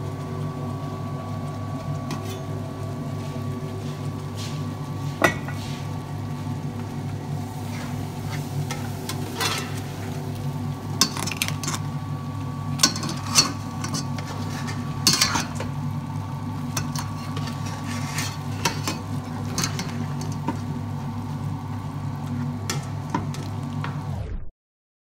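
Metal utensil clinking and scraping against a stainless steel stockpot as crabs cooking in coconut milk are stirred and lifted, with a few sharp clanks standing out. A steady mechanical hum runs underneath and cuts off near the end.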